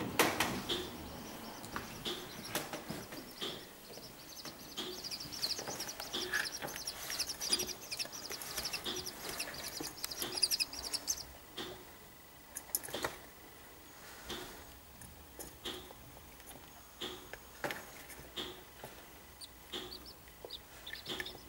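Seven-day-old corncrake chicks calling while feeding, with a quick high-pitched chatter of peeps through the first half. Under it a short tick repeats about every two-thirds of a second, and there is a knock right at the start.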